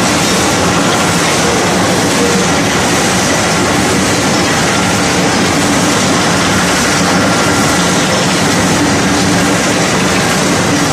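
Wood pellet mill and its outfeed conveyor running at full production: a loud, steady mechanical din with faint humming tones and no pauses.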